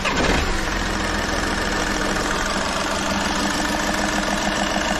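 Volkswagen Polo three-cylinder diesel engine just started, its revs falling back in the first half second, then idling steadily. This is the sound of the engine running right after its three failed, back-leaking injectors were replaced.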